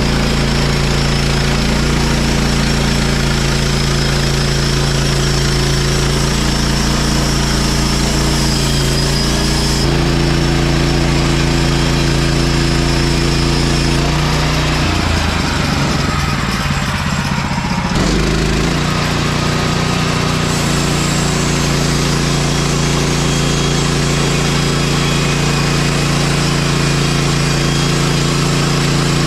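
Gasoline engine of a Woodland Mills HM 130 MAX portable band sawmill running steadily while the mill saws a green white oak log. Its pitch steps about ten seconds in, and the sound is briefly unsettled between about fifteen and eighteen seconds before it steadies again.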